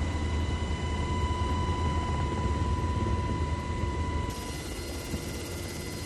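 Steady drone of an aircraft in flight: a low rumble with a steady high whine over it. It drops somewhat in level about four seconds in.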